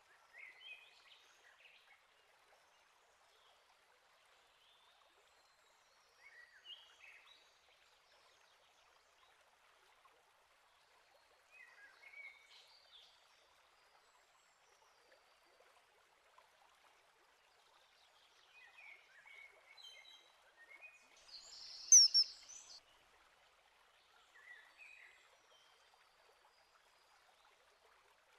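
Small songbird singing short phrases every few seconds over a faint steady hiss, with one loud, sharp, high-pitched call about three-quarters of the way through.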